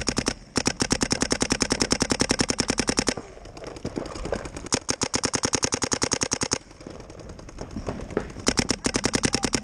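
Electronic paintball marker firing in rapid streams of about a dozen shots a second: a long stream until about three seconds in, another from about four and a half to six and a half seconds, and a third starting near the end. Fainter, scattered marker shots sound in the gaps between them.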